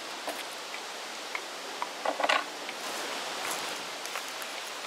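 Steady sizzling hiss from the hot oil of a Fry Daddy deep fryer and the freshly fried Cornish hen, with a few light clicks as the bird is handled on a plate.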